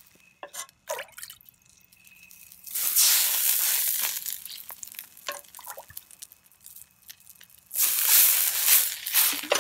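Water hitting a hot carbon steel wok and hissing into steam in two loud bursts, one about three seconds in and one near the end, each fading over a second or two, with a few small metal clicks before the first.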